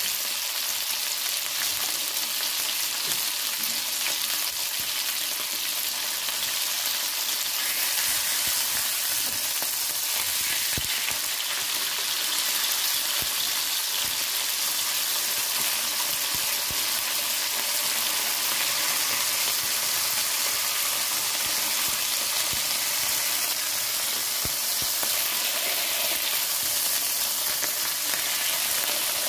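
Tilapia frying in shallow hot oil in a pan: a steady sizzle with scattered small crackles and pops.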